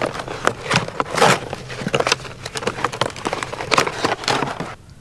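Plastic and cardboard packaging of a Thermacell mosquito repellent being torn open and crinkled by hand: a dense run of crackles and rips that stops abruptly near the end.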